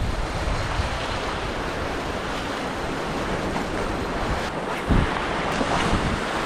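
Sea waves surging and washing over granite rocks at the water's edge, a steady rushing wash, with wind buffeting the microphone. A short low thump about five seconds in.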